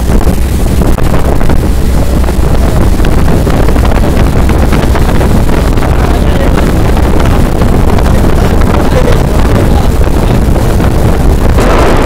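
Motorboat engine running steadily while underway, with wind buffeting the microphone and water rushing past the hull.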